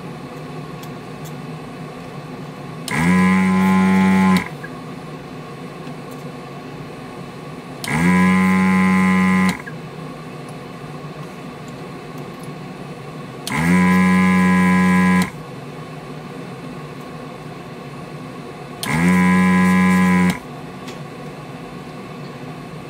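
Vacuum desoldering gun's suction pump buzzing in four short bursts of about a second and a half each, as the trigger is pulled to suck molten solder off the display's fine-pitch pins. A steady low hum runs between the bursts.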